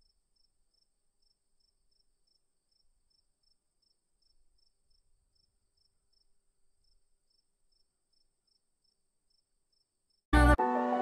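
Near silence, broken only by a very faint, evenly repeating high chirp, until background music starts abruptly near the end.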